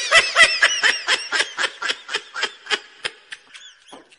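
A man laughing in a long run of quick bursts, about five a second, that fade out near the end.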